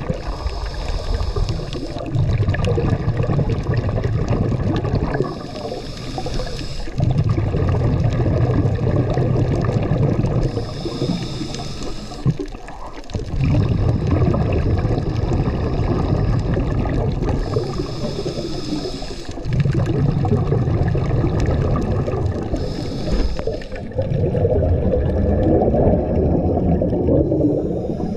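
A scuba diver breathing through a regulator underwater: a short hiss on each inhale alternates with a longer rumbling rush of exhaled bubbles. There are about five breaths, one every five seconds or so.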